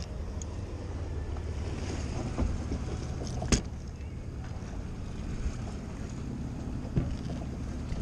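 Outboard motor running steadily at trolling speed, a low hum under wind and water noise, with a few knocks on the boat, the sharpest about three and a half seconds in.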